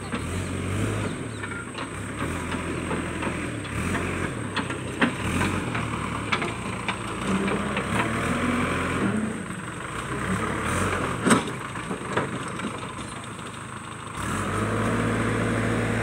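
JCB backhoe loader's diesel engine running, its note shifting as the machine moves and works, with several sharp knocks and clanks along the way. About two seconds before the end the engine speeds up and holds a louder, steady note.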